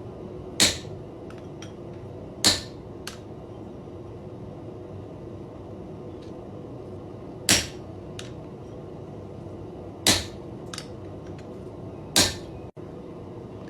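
Hammer blows on a steel square punch, stamping decorative marks into a forged iron collar: five sharp strikes a few seconds apart, each with a short ring, and a few lighter taps between.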